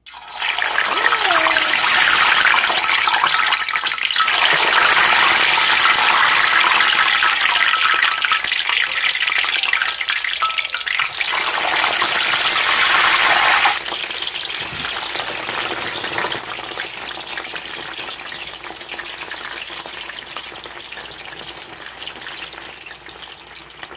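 Raw yam sticks frying in hot oil in a shallow pan, a loud dense sizzle that starts the moment they go in. A little past halfway the sizzle drops sharply, then it keeps quietening slowly as the yam fries.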